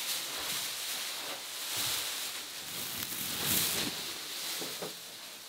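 Continuous crinkly rustling of a disposable protective coverall and plastic dust-tent sheeting as the wearer moves and brushes through them, a little louder about two seconds in and again past the middle.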